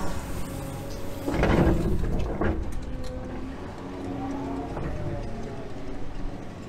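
Excavator engine and hydraulics running under load, heard from inside the cab, with a loud burst of noise lasting about a second a little over a second in. Around four to five seconds in the engine tone rises and falls.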